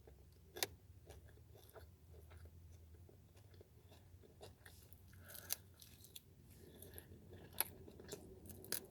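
Close-up chewing and biting on a chicken wing, with scattered soft crunches and wet mouth clicks. The loudest crunches come about half a second in, near the middle and again near the end.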